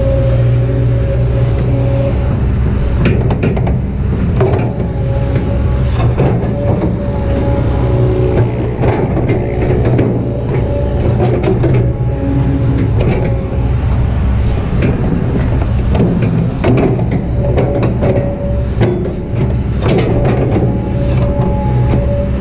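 Kobelco SK200-8 excavator's diesel engine running steadily under load, with a shifting hydraulic whine and scattered knocks and clatter from the working arm and bucket.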